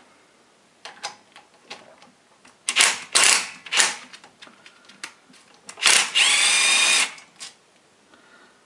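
Hand tools clattering and rattling, then a power drill spinning up with a rising whine that holds steady for about a second and stops, as a socket is readied for the rocker cover bolts of a 156FMI single-cylinder engine.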